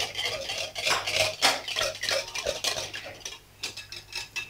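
Metal wire whisk beating a thin liquid batter in a glass bowl: quick, repeated clicking and scraping strokes of the wires against the glass, with a short pause about three and a half seconds in.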